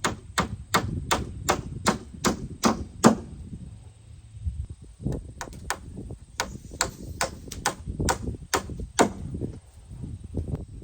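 Hammer driving nails into wooden 2x4 strapping: two runs of quick, sharp strikes about three a second, with a pause of a couple of seconds between them.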